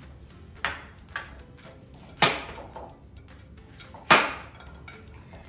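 Chef's knife chopping through fresh broccoli stalks onto a plastic cutting board: four separate chops, two light ones in the first second or so and two loud, crunching ones about two and four seconds in.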